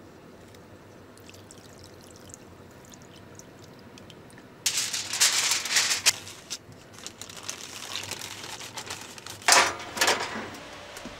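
Aluminium foil crinkling loudly for about two seconds about halfway through as a sheet is handled and pressed over a bowl. Two short loud bursts of crinkling or handling noise follow near the end.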